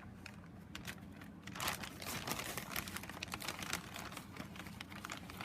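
Packaging of card-making supplies crinkling and rustling in the hands as items are put back into it, with irregular small clicks, busier from about a second and a half in, over a faint low hum.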